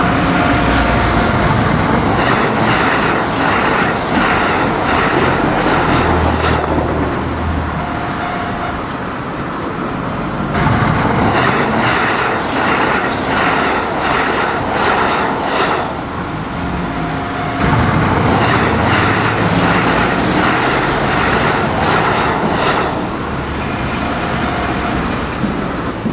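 Kintetsu electric trains running by, wheels clattering rhythmically over rail joints in three stretches, starting about 3, 11 and 18 seconds in.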